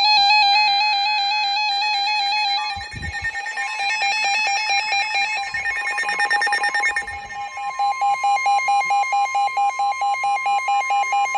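Several NOAA weather radios sounding their alert for a severe thunderstorm warning: layered electronic warbling and chirping tones. Fast beeping comes in about halfway, at roughly six beeps a second, under a long steady tone that is the NOAA warning alarm tone.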